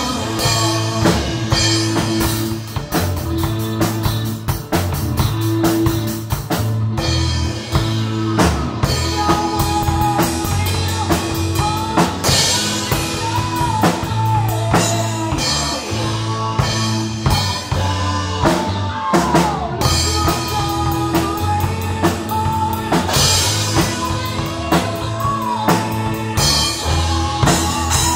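Tama drum kit played live, with kick drum, snare, toms and cymbals, keeping a steady rock beat along with a recorded rock song carrying electric guitar and bass.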